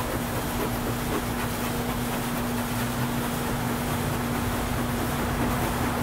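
Honey bees of an opened hive buzzing: a steady hum at one constant pitch over a noisy wash.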